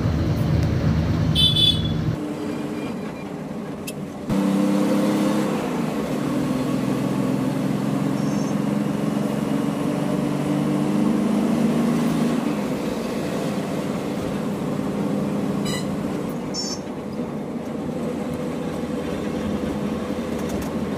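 Diesel lorry engine running steadily while the truck drives, heard from inside the cab. The engine note changes about two and four seconds in, and there are a few short high-pitched chirps.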